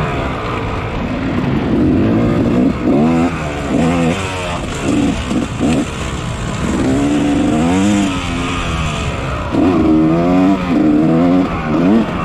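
Yamaha 250 dirt bike engine revving hard in a race, its pitch climbing and then dropping again every second or two as the throttle is opened and closed.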